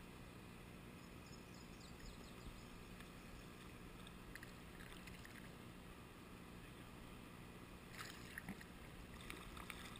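Quiet paddling on calm water: faint water lapping at a kayak, with a few small paddle splashes and knocks near the end.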